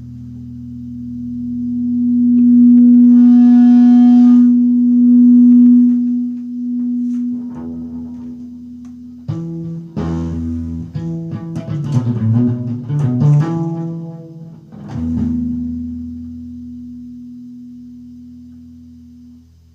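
Amplified guitar through an effects unit: a held note swells up into sustained feedback. A flurry of picked notes follows midway, then another long feedback note slowly fades away.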